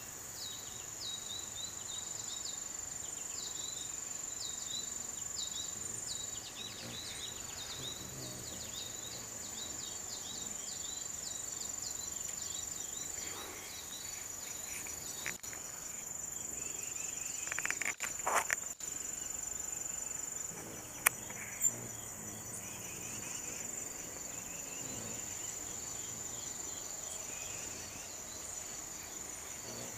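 Insect chorus: a steady, high-pitched drone with rows of quick, repeated chirps over it in the first half. A brief louder sound comes a little past halfway, and two sharp clicks follow shortly after.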